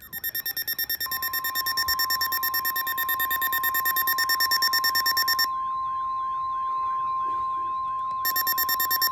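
NOAA Weather Radio alert: the steady 1050 Hz warning alarm tone comes on about a second in, for a severe thunderstorm warning. Over it runs a weather radio receiver's rapid electronic alarm beeping, which pauses for about three seconds midway and then resumes.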